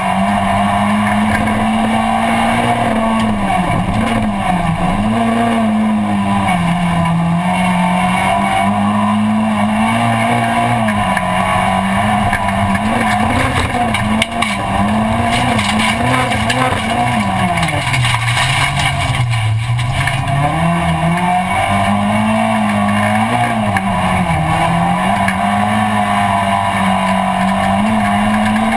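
A rallycross car's engine heard from inside its stripped, roll-caged cabin, running hard at racing pace. Its pitch rises and falls again and again through gear changes and lifts for corners, dropping lowest a little past the middle, over a steady rush of noise.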